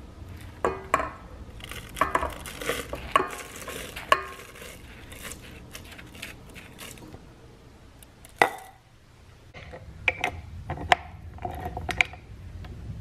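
Dry flour and oat mixture being poured from a glass bowl into a stainless steel mixing bowl: a soft hiss of pouring flour with the glass bowl clinking and knocking against the metal bowl. A single sharp knock a little past eight seconds, then a few more light clinks of bowl and hands against the metal.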